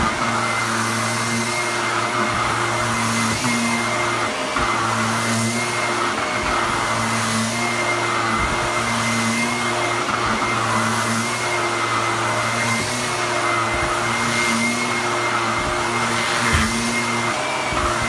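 Bagless upright vacuum cleaner running steadily over a rug, its motor hum swelling and easing every second or two as it is pushed back and forth, with a couple of brief knocks.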